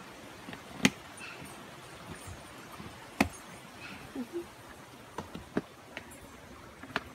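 Hens clucking softly now and then, over scattered sharp clicks and knocks, the loudest about a second in and just after three seconds in.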